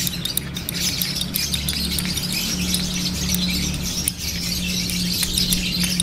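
Metal spoon stirring bird hand-feeding formula in a small ceramic cup: quick scraping and light clinks against the cup, over a steady low hum.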